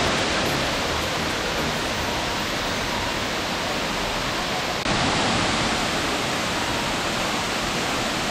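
Steady rushing of waterfalls pouring down a rock face into a pool, an even hiss of falling water that steps up slightly about five seconds in.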